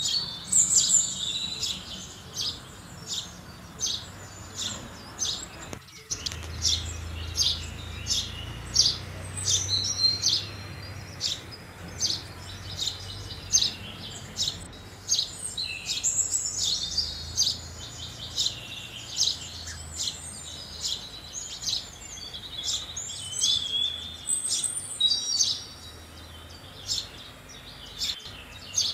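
House sparrow chirping over and over, short high chirps about two a second, with a few longer twittering runs mixed in.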